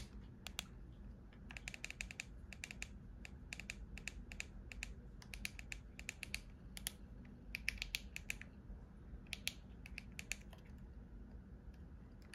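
Small plastic clicks in short quick runs of three to six, repeating with pauses between: the controls of a handheld two-way radio being worked while it is set up.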